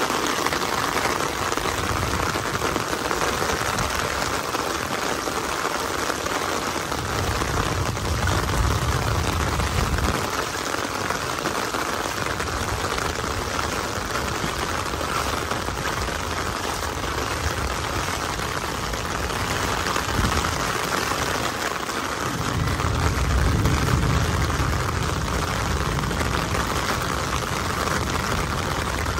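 Heavy rain falling steadily on wet streets and standing water, an even hiss, with two stretches of low rumble, about seven seconds in and again past twenty-two seconds.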